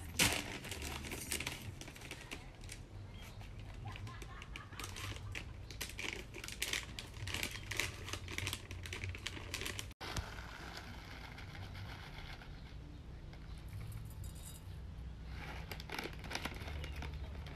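Foil pouch of Me-O dry cat food crinkling as it is handled and torn open, a quick irregular string of sharp rustles and clicks that thins out about ten seconds in and picks up again near the end.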